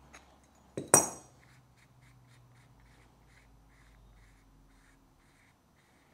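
A single sharp metallic clank with a brief ringing about a second in, from an adjustable wrench on a small carburettor fitting, followed by faint light clicks of the part being handled and turned.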